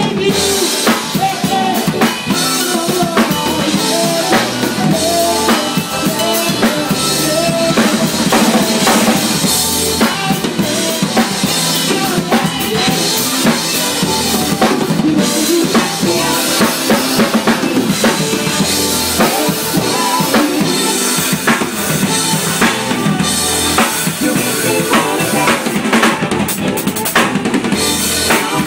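A drum kit played continuously in a live band: kick drum, snare rimshots and cymbals are the loudest part, with the band's pitched instruments underneath.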